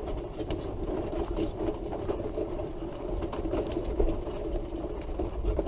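Powered wheelchair's electric drive motor whining steadily as it rolls along, over a low rumble and light clicks from the wheels on the path.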